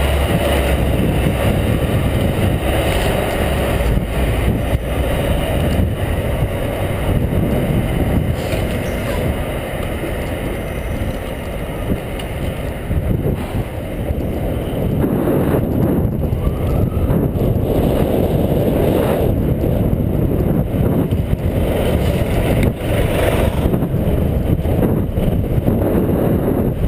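Wind rushing over the microphone of a camera on a moving bicycle, a steady low rumble, with city street traffic beneath it.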